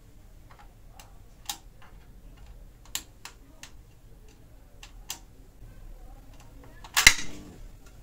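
Several sharp clicks from handling the mains plug at a PC power supply, then about seven seconds in a single loud bang with a brief crackling tail: the power supply blowing up on the overvoltage.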